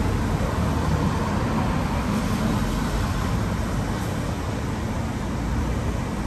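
Steady city road traffic: a continuous wash of cars and other vehicles passing on a busy street.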